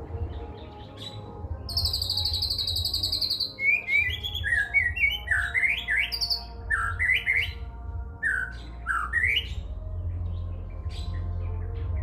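White-rumped shama (murai batu) singing: a fast, high buzzing trill, then a run of quick rising whistled notes, its song loaded with cililin imitations. A steady low hum runs underneath.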